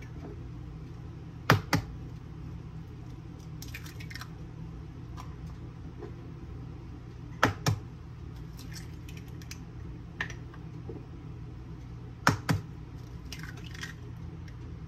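Eggs being cracked on the rim of a glass bowl: three pairs of sharp knocks about five seconds apart, each followed by softer crackling as the shells are pulled open.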